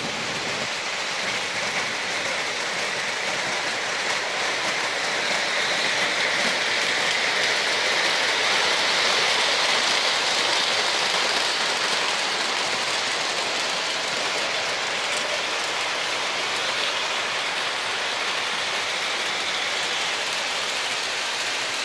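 Model trains running on three-rail metal track: a steady rushing, whirring rumble of wheels on the rails, swelling somewhat about a third of the way in and easing off again as a train passes near.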